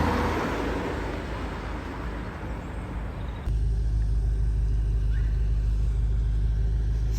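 BMW M5 F10's twin-turbo V8 car driving: engine and road noise rising and falling, then after a sudden cut about three and a half seconds in, a steady low drone.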